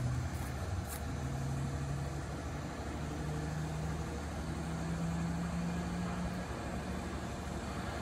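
A steady low mechanical hum like an engine running, with a tone that climbs slowly in pitch; a faint click about a second in.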